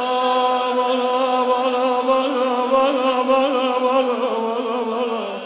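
A man's voice singing one long, wavering held note of a Shia mourning elegy (noha). The pitch dips near the end.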